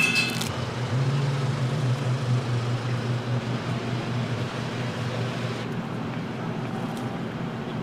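Steady kitchen background: a low machine hum under an even hiss, the hiss thinning out about two-thirds of the way in.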